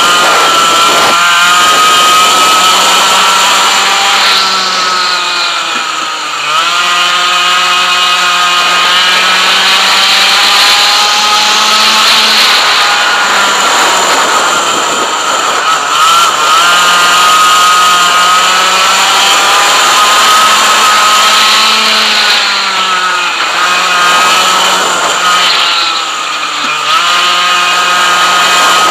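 Single-cylinder 100cc two-stroke kart engine at high revs, heard from on board the kart. The revs fall off and climb back several times as the kart goes through the corners.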